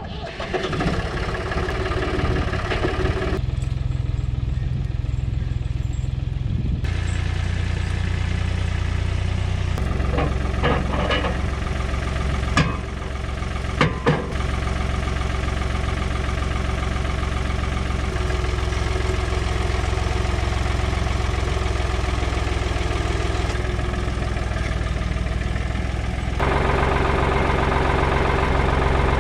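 Sawmill engine running steadily, its sound shifting abruptly several times. Two or three sharp knocks come near the middle.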